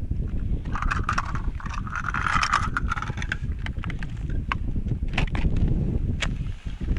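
Wind buffeting the microphone in a steady low rumble, with a scraping sound about one to three seconds in and scattered small clicks.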